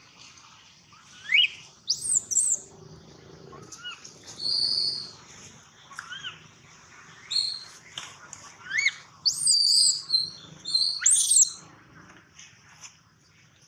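Baby long-tailed macaque crying: short whistle-like whimpers that rise and fall in pitch, repeated every second or two, with louder, shriller cries around two seconds in and again from about nine to eleven seconds.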